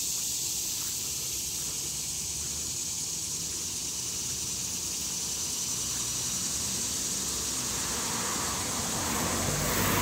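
Chorus of annual cicadas giving a steady, high buzz, over a low hum of road traffic that grows louder near the end as a vehicle approaches.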